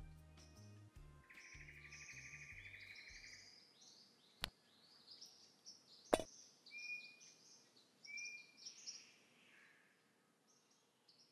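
Birds chirping with a buzzy trill, over the tail of soft background music fading out. There is a light tick about four and a half seconds in, then a sharper click under two seconds later as a golf ball drops into the cup.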